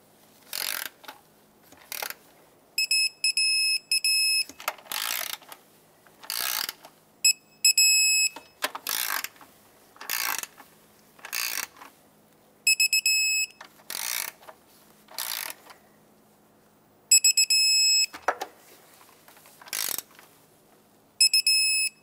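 A digital torque wrench ratcheting bolts tight, and its electronic beeper giving a quick run of high beeps five times, about every four to five seconds, each time a bolt reaches the set 13 ft-lb.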